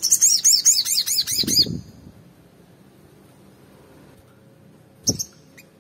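Male olive-backed sunbird singing a fast run of sharp, high repeated notes, about six a second, that stops after under two seconds. About five seconds in comes one more short chirp together with a soft thump.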